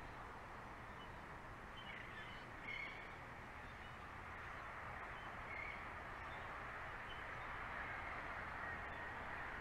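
A few short, faint bird calls, a couple between about two and three seconds in and one more a little past halfway, over a steady outdoor hiss.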